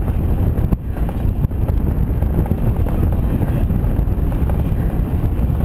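Wind buffeting the microphone of a camera riding on a moving pedal car, a steady low rumble with no engine note.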